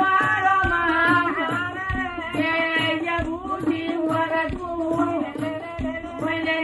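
Women singing a traditional Harari song over a frame drum, which keeps a steady beat a little under two strokes a second.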